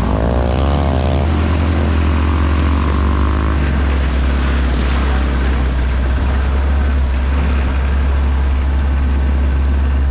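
Open 4x4 vehicle driving over a bumpy track: steady, loud engine and ride noise with a heavy low rumble, and a wavering whine that rises and falls over the first few seconds.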